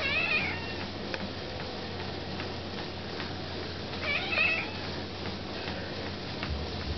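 Cat meowing twice, about four seconds apart, each a short wavering call, over a steady low hum.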